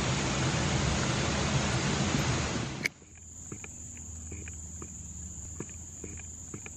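A loud, even rush of water noise cuts off abruptly about three seconds in. It gives way to quieter forest ambience: a steady high-pitched insect drone with faint scattered ticks.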